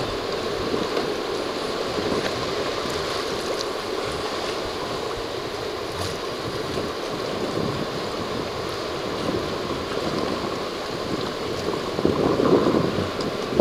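Water rushing and splashing along the hull of a sailing yacht under way, with wind noise on the microphone; a louder surge of water near the end.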